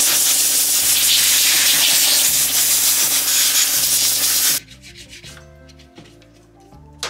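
Compressed air from an air-compressor blow gun blasting dust out of a Stihl chainsaw's clutch and sprocket area: a loud steady hiss that cuts off about four and a half seconds in. After it, softer brushing as a toothbrush scrubs the saw's housing.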